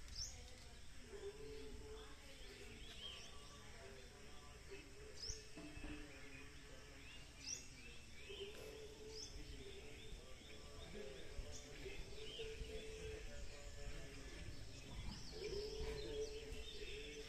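Quiet outdoor ambience: scattered short bird chirps a few seconds apart over a faint steady tone that comes and goes, and a low rumble.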